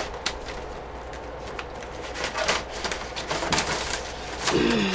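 Papers and craft supplies being handled while a stencil is sought, giving scattered light rustles and clicks, with a short pitched sound near the end that falls in pitch.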